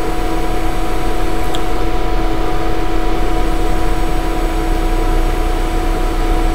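Steady background hum and hiss carrying a few constant tones.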